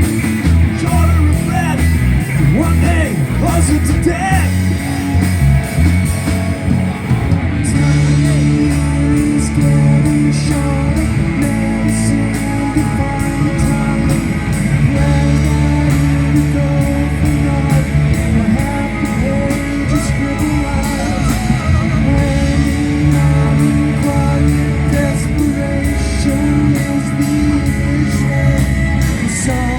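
Live rock band playing: electric guitar over bass and a steady drum beat, an instrumental stretch with no sung words.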